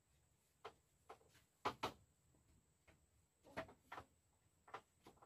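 Long bamboo poles knocking and clacking against one another and the bamboo door frame as they are set upright: about half a dozen sharp, scattered knocks with quiet between.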